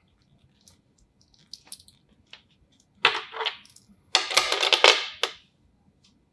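Metal watch bracelets and deployant clasps being handled: a few light clicks, then two spells of metallic clinking and rattling, the second longer.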